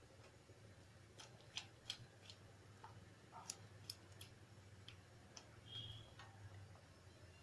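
Very faint, scattered clicks and soft pops from thick tomato-onion puree being stirred with a silicone spatula as it fries in ghee in a steel kadhai, over a low steady hum.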